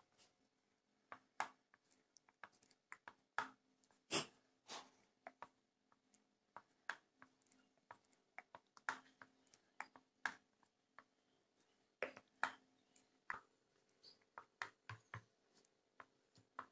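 A plastic spoon stirring a thick cocoa-and-hot-water mixture in a ceramic bowl. It knocks and scrapes against the bowl in irregular sharp clicks, about two or three a second, over a faint steady hum.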